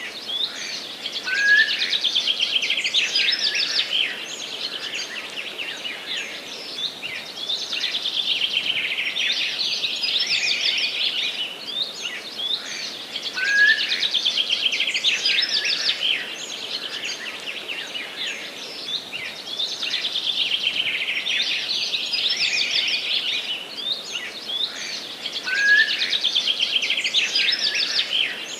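Forest songbirds chirping and trilling without pause in high, rapid phrases over a soft background hiss. The same stretch of song comes round again about every twelve seconds.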